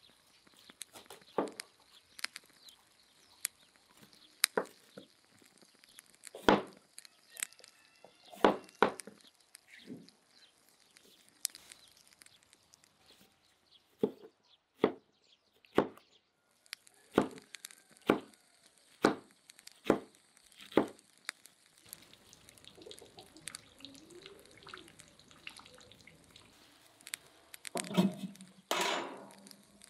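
Large knife chopping peppers on a wooden cutting board: irregular sharp knocks. Near the end, a metal grill grate is set down onto a charcoal grill, the loudest sound here.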